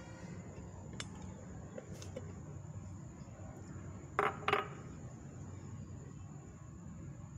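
Two quick, ringing metallic clinks about a third of a second apart as kitchenware is knocked while toppings are set on a pizza in a metal pan, over a steady low hum.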